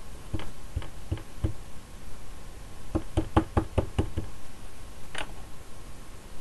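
Light knocks and taps of hard plastic on a tabletop from handling the acrylic stamp block and ink pad. There are four spaced taps, then a quick run of about eight in just over a second, then a single knock near the end.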